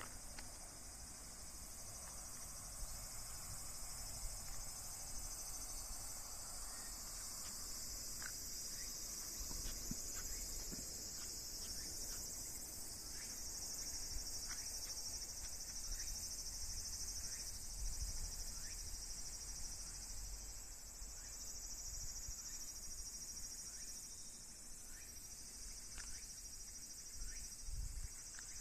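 Steady high-pitched chorus of insects with a fine pulsing texture. From about eight seconds in, faint short chirps repeat about once a second over it.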